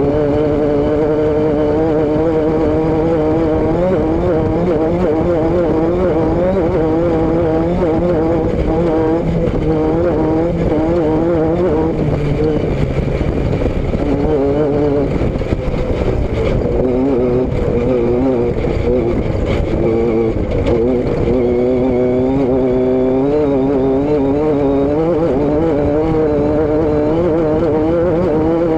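Vehicle engine running continuously under way, its pitch wavering slightly up and down, over a steady rush of noise.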